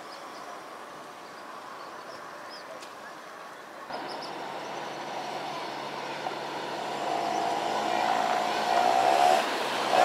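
Passing road traffic, with one vehicle's engine growing louder over the last few seconds.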